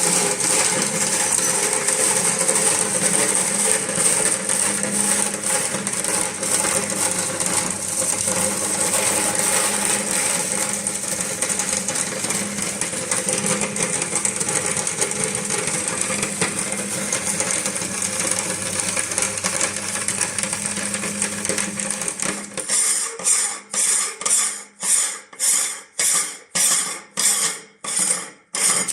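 Electric meat grinder running with a steady motor hum while its auger crushes plastic balls, a dense clattering, crunching grind. Toward the end the grinding breaks into a regular knocking, about two a second, before it stops.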